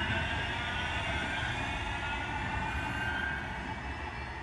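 Manchester Metrolink M5000 double-unit tram pulling away from the platform: electric traction whine over the rumble of wheels on the rails, fading gently as it moves off.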